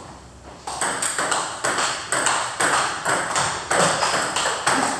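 Table tennis balls clicking off paddles and tables in quick, irregular succession from rallies on several tables. The clicks start about half a second in.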